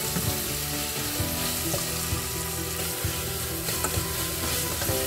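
Fenugreek leaves and onion sizzling in oil in a stainless-steel saucepan, a steady frying hiss. A spoon stirs through it, with a few light taps against the pan.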